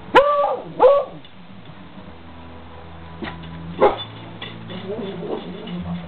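Beagle barking twice in quick succession, each bark rising then falling in pitch. A single sharp knock follows near four seconds in.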